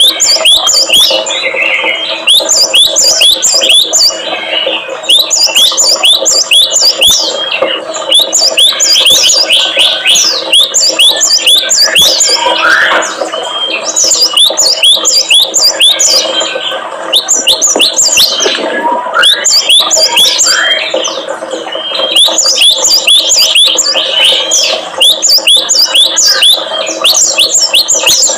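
Small songbirds chirping in rapid bursts of sharp, falling notes with brief pauses between bursts, over a steady low hum. It is a bird-lure recording of the kind played to provoke cinereous tits, prinias and white-eyes into calling.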